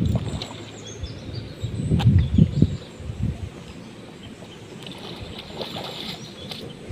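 Outdoor ambience with small birds chirping faintly, and low rumbling bursts about two seconds in.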